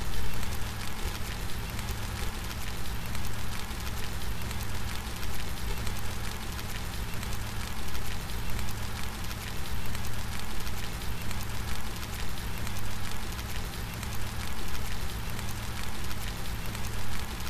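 Steady rain falling, a dense patter of many small drops with a low steady rumble underneath and no thunder.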